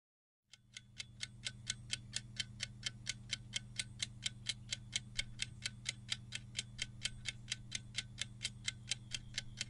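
Clock-ticking sound effect for a countdown timer: sharp, evenly spaced ticks at about four a second over a low steady hum, starting about half a second in.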